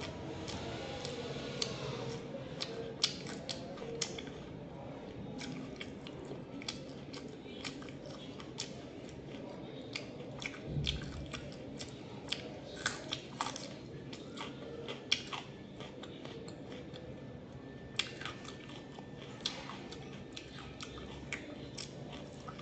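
A person chewing food close to the microphone, with many small irregular wet mouth clicks and smacks.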